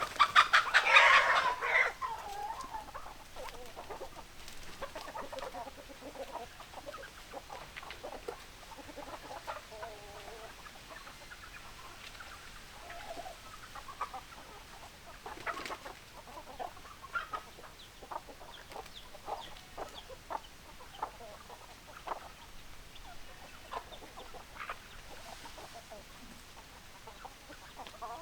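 Chickens clucking, with a loud chicken call in the first two seconds followed by many short, scattered clucks.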